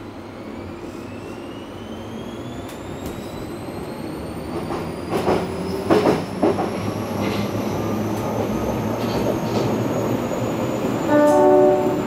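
Berlin U-Bahn F79 train accelerating, heard from inside the passenger car: the drive's whine climbs in pitch as speed builds. The rolling noise swells, and a few sharp knocks from the wheels come midway. A short steady tone comes near the end and is the loudest sound.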